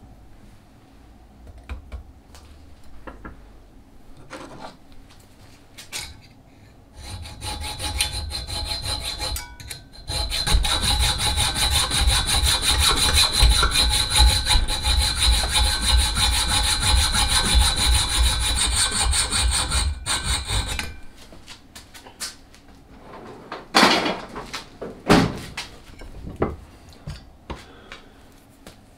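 A saw cutting through metal rod, a steady run with a high whine that starts about seven seconds in, gets louder about three seconds later and stops sharply some fourteen seconds after it began. Two sharp knocks follow a few seconds later.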